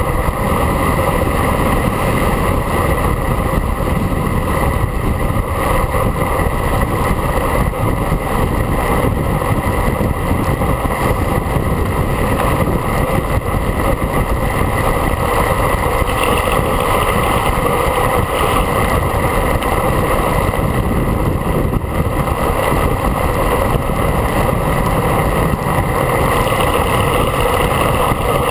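Steady roar of wind buffeting the microphone of a handlebar-mounted action camera on a road bike moving at speed.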